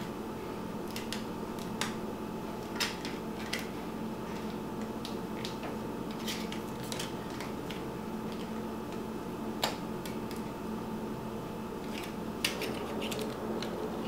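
Scattered light clicks and taps of a car radio unit's small plastic and electronic parts being handled, over a steady low hum.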